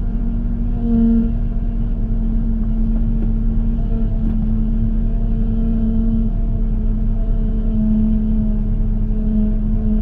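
Saab B205R 2.0-litre four-cylinder turbo engine idling, heard from inside the cabin, with a steady hum on top of the low rumble, which the owner suspects comes from a failing power steering pump.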